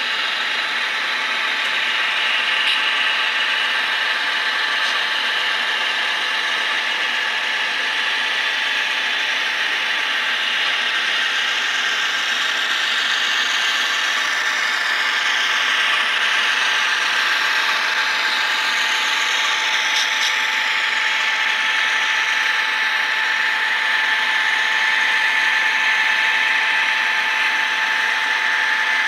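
Model train locomotives running past, their motors and gears giving a steady whine with a mechanical rattle from the running gear on the track.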